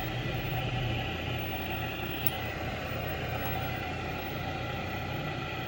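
Vintage Curtis Mathes tube colour TV chassis powered on, giving a steady low hum with a hiss over it. There is no high-pitched horizontal whine, fitting a set whose horizontal section has not come up and has no high voltage.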